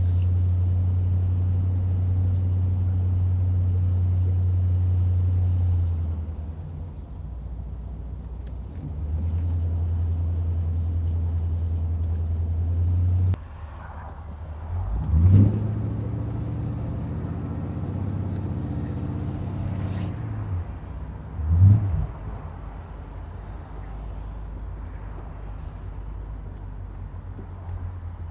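1981 Corvette's V8 engine running as the car drives, a steady low drone with road noise that drops off around halfway through, then two short rises in revs, at about 15 and 21 seconds in, which are the loudest moments.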